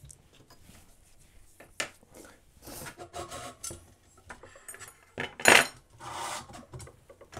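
Workshop handling noises: a stepper motor in its printed plastic mount and other small parts being moved and set down against aluminium extrusion on a workbench. Scattered clicks and knocks, several short scrapes, and one louder scrape about five and a half seconds in.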